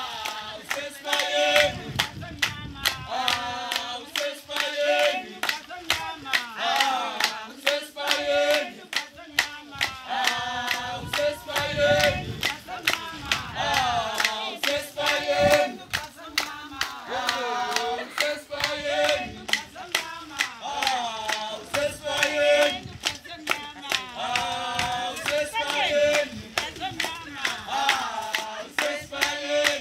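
A group of voices singing together over steady rhythmic hand clapping.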